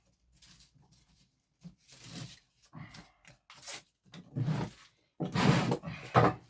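Irregular bursts of scraping and knocking as a new wooden handle is handled and tried in the eye of a sledgehammer head, loudest in the last two seconds.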